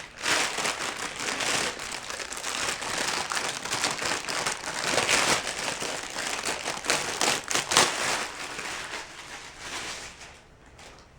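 Packaging crinkling and crumpling as it is handled, a dense run of crackles that dies away about ten seconds in.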